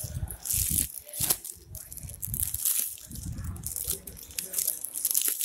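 Clear plastic saree packaging crinkling and rustling in irregular bursts as it is handled and pulled open, with low rumbling handling noise underneath.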